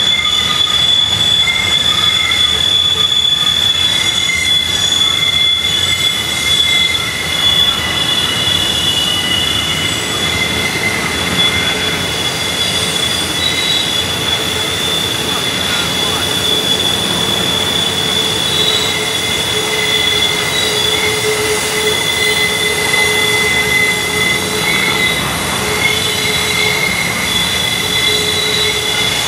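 Steel wheels of long Norfolk Southern freight trains, loaded coal hoppers and intermodal flatcars, squealing against the rails as they round the tight curve: several high, steady squealing tones held over the continuous rumble of the rolling cars.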